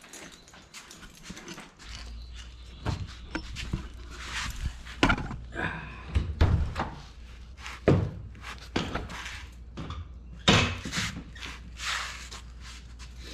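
Footsteps with irregular thunks, knocks and clinks of hand tools and parts being carried and set down. A low steady hum comes in about two seconds in.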